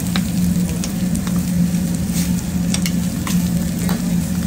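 Meat sizzling on a hot flat-top griddle, with scattered sharp clicks from metal tongs and a spatula being worked among the food. A steady low hum runs underneath.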